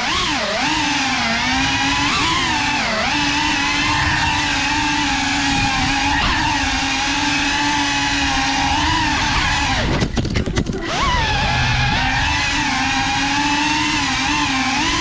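Small FPV quadcopter's motors and propellers whining, the pitch rising and falling with the throttle as it flies. The whine dips and breaks up for about a second near ten seconds in, then picks up again.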